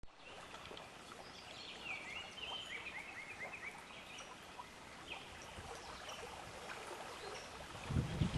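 River water flowing steadily, with birds calling over it; one bird gives a quick run of short falling notes. Near the end a much louder low rushing sound starts.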